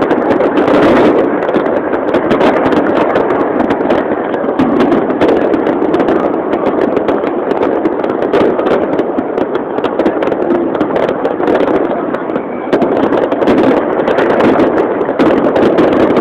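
Fireworks going off, a rapid stream of pops and crackles, over the steady din of a large crowd talking.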